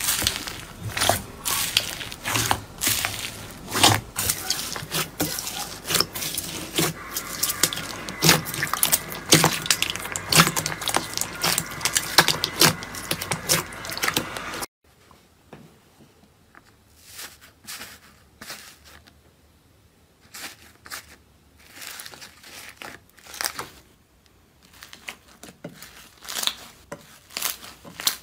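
Slime squished and pressed by hand, crackling and popping as air pockets burst. The first half is a loud, dense crackle; about halfway through it cuts abruptly to quieter, sparser crackles and pops.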